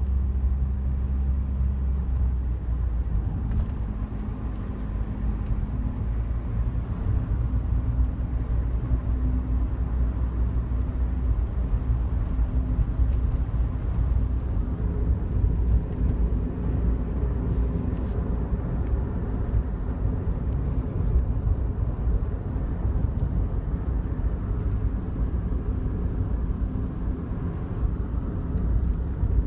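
Inside a moving Daihatsu Wake: steady road and engine rumble, with faint scattered ticks, the sign of a buzzing rattle from the dashboard in front of the passenger seat.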